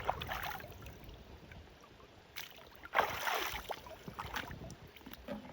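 Water splashing and sloshing in short surges, the loudest about three seconds in, with a few light knocks.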